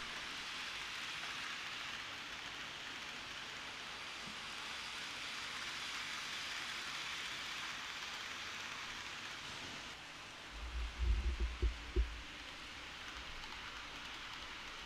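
A steady hiss, with a quick cluster of low thumps a little over ten seconds in.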